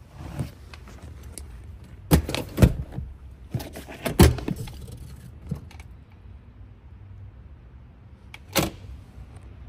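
Handling knocks and clunks inside an SUV's cabin, over a low rustle. A loud cluster of sharp knocks comes from about two to four and a half seconds in, and another single knock comes near the end.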